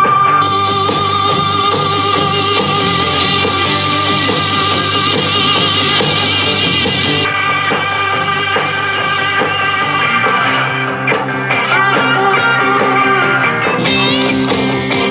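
Blues-rock music with electric guitar and drums, played back through a small portable Bluetooth speaker.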